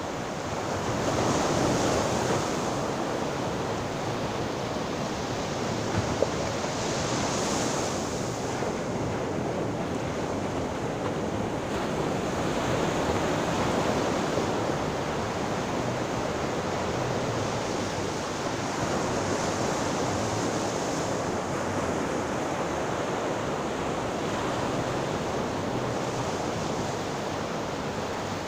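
Sea waves breaking and washing on the shore: a continuous surf hiss that swells louder every six seconds or so as a wave comes in.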